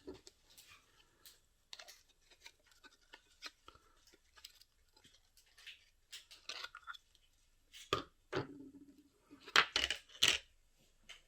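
Handling noises: scattered light clicks and taps of small hard objects, with a burst of louder knocks about ten seconds in.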